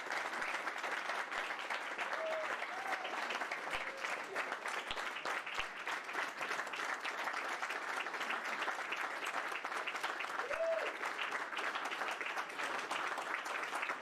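A roomful of people applauding steadily in a standing ovation, with a couple of short voices calling out over the clapping.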